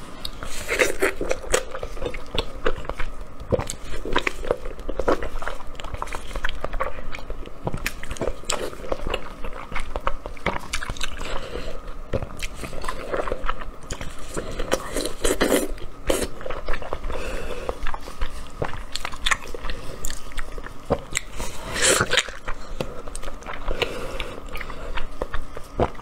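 Close-miked biting and chewing of red-braised pork belly, a dense, irregular run of short smacks and clicks.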